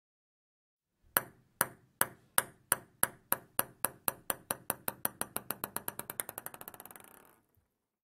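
A table tennis ball bouncing on a hard surface, starting about a second in: the bounces come quicker and quieter until the ball rattles to rest after about six seconds.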